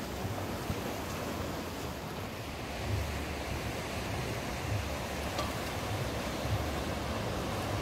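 Sea surf washing onto the beach, a steady rushing noise, with wind rumbling on the microphone.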